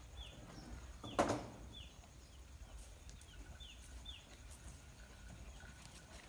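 A small bird's short, high chirps, each falling in pitch, repeated every half second or so, with one louder sudden sound a little over a second in.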